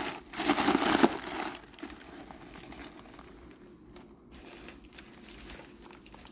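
Crumpling and crinkling of stuffing being pushed into a coated cotton tote bag to make it stand up. It is loudest in the first second or so, then settles into quieter rustling.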